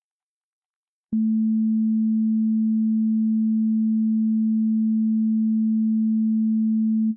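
A pure 220 Hz sine tone that starts with a click about a second in and holds at one even level for about six seconds. It is played as four joined notes, with the phase in one ear flipped by 180 degrees from each note to the next while the loudness stays identical in both ears.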